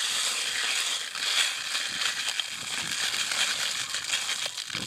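Coarse salt poured from a bag into a baking dish: a steady dry rush of falling crystals with scattered small clicks as they land on the dish and on the growing bed of salt.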